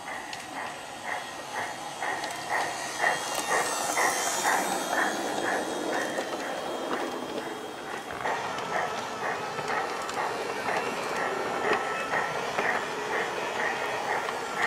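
Piko G-scale BR 80 model steam locomotive running, giving a steady rhythmic chuff of about three beats a second.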